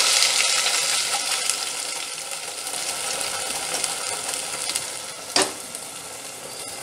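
Green coriander-mint paste sizzling as it hits hot oil in a pot, loudest at first and slowly dying down. A single sharp knock about five seconds in.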